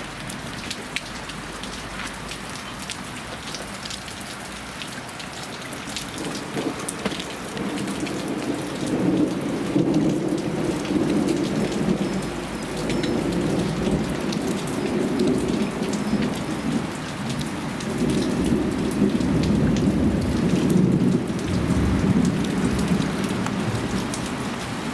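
Heavy rain pouring down steadily, with a long, rough rumble of thunder swelling up about a third of the way in and rolling on until near the end.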